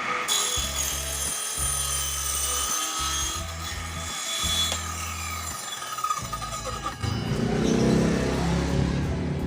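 Homemade table saw driven by a 300 W used washing-machine motor, its circular blade running and cutting through wood with a whine, over background music.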